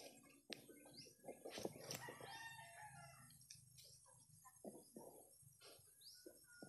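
Faint domestic chickens in the background: a rooster crowing and clucking, with short high chirps of small birds and a few sharp clicks.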